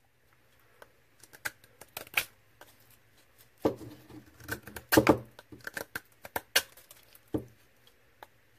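Browning pocket knife blade cutting and shaving a wooden stick: a run of short scraping cuts and small ticks, with stronger strokes about three and a half, five and seven and a half seconds in.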